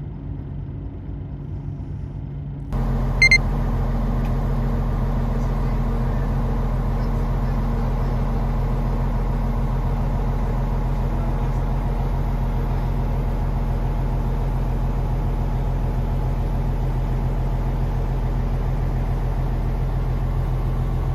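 A fishing boat's engine running with a steady low drone, heard from inside the cabin; it gets louder about three seconds in. A short double electronic beep sounds just after the rise.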